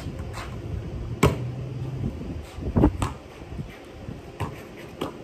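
Basketball bouncing on a concrete driveway: a few separate sharp thuds, irregularly spaced, the loudest about a second in and a double one near the middle.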